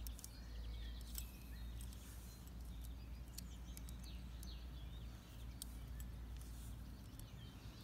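Faint outdoor ambience: small birds chirping on and off over a steady low rumble, with a few sharp clicks.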